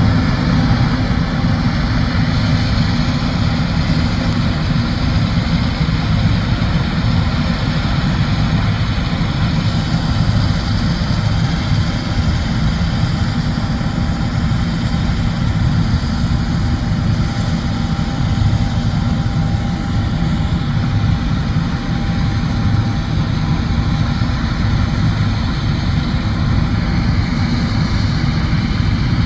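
John Deere combine harvester running steadily at a constant load while harvesting soybeans, its deep engine drone mixed with the whir of the threshing machinery.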